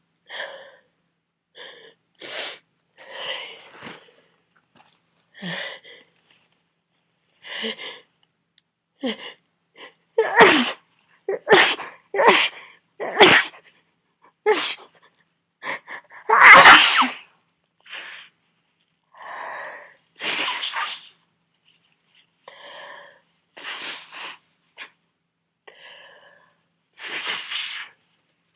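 A person with a head cold in a long sneezing fit: many sneezes, several in a quick run of four within about three seconds. Shorter, quieter breaths come between them, and the loudest, longest sneeze falls about halfway through.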